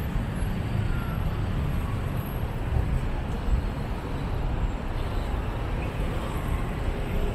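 Steady road traffic noise from passing cars and other vehicles, mostly a low rumble.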